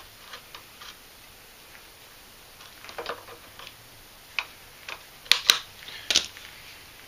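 Pliers and a spring hose clip clicking and rattling as a rubber fuel hose is worked off the carburetor fitting of a small engine. There are scattered small clicks, with the sharpest few coming in quick succession past the halfway point.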